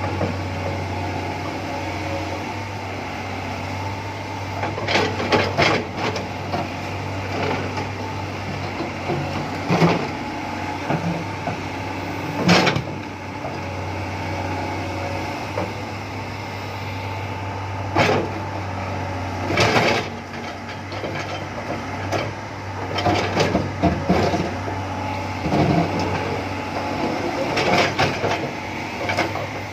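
Excavator diesel engine running steadily, with sharp knocks and clanks at irregular intervals every few seconds.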